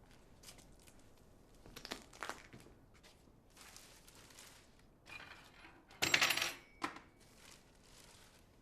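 Clinks and clatter of dishes and cutlery, a few light knocks and then a louder rattling clatter about six seconds in, followed by one more clink.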